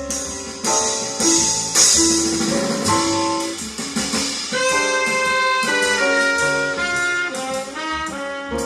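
Recorded jazz with a horn melody of held notes, played back through Bowers & Wilkins 607 S2 bookshelf speakers with foam plugs in their bass-reflex ports, alongside a subwoofer.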